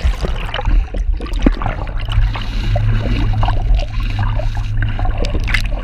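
Muffled underwater sound: the boat's engine making a steady low drone, with gurgling water and scattered faint clicks and taps.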